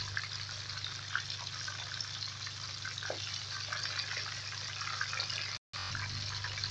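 Fish curry bubbling and sizzling in a pan: a steady hiss dotted with small popping bubbles, over a low steady hum. The sound drops out for an instant near the end.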